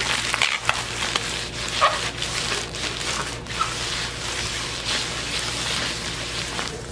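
Plastic bubble wrap crinkled and rustled by hand as it is unwrapped: a dense, continuous crackling full of small sharp crackles.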